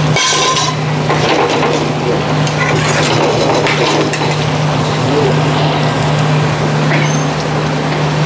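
Steady hum and rush of a restaurant kitchen's gas burners and extraction, with a metal ladle knocking and scraping in steel karahi pans of simmering curry; the sharpest knock comes just after the start.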